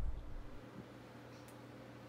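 Quiet indoor room tone with a steady low hum, after a low rumble fades out in the first half second; a single faint click about a second and a half in.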